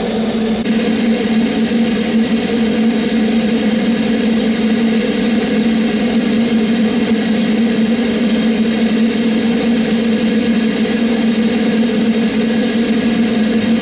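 Double Fairlie steam locomotive standing with steam hissing steadily, over a steady low hum.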